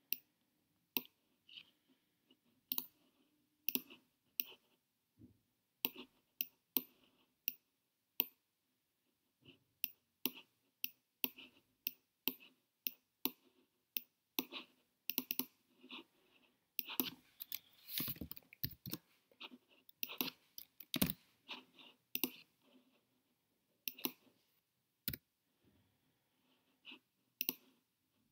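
Computer mouse button clicking, single clicks and quick pairs at irregular intervals, packed more densely in the middle stretch.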